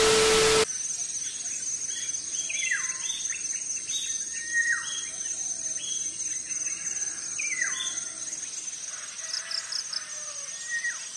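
A short burst of TV static with a steady beep, then birdsong: a series of calls that each slide down in pitch, repeated every second or so over a steady high-pitched drone.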